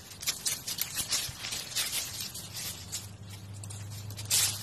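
Irregular rustling and crackling of plant leaves and dry mulch disturbed by a baby alpaca nosing into a plant. A low steady hum joins about three seconds in.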